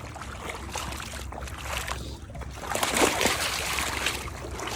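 A dog splashing through shallow water close by, the spattering getting louder about three seconds in.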